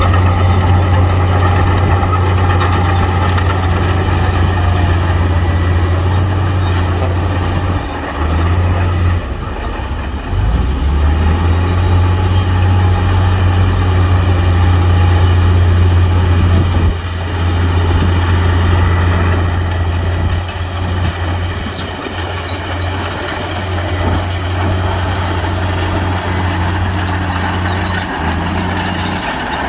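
Heavy diesel engine of earthmoving machinery running loud and steady, its load and pitch changing briefly several times. A faint high whine sits over it for a few seconds in the middle.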